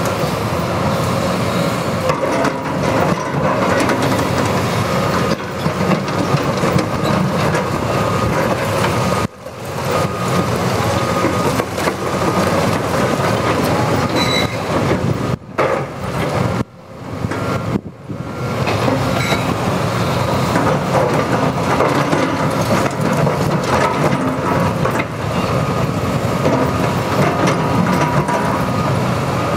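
Caterpillar 329E hydraulic excavator working a heap of broken concrete: its diesel engine running under load while the bucket scrapes and clatters through the rubble. The noise dips sharply a few times around the middle.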